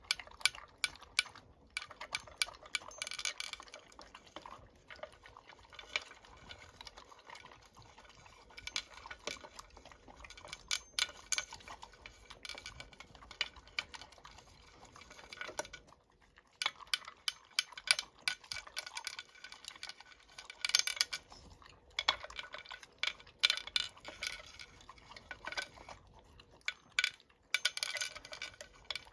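A dog eating from a bowl: irregular clusters of small clinks and clicks against the dish, with a brief lull about sixteen seconds in.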